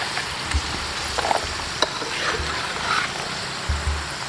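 Battered bamboo-shoot fritters deep-frying in a small pan of oil, a steady sizzle, with a few light clicks of the knife against the pan as fried pieces are lifted out.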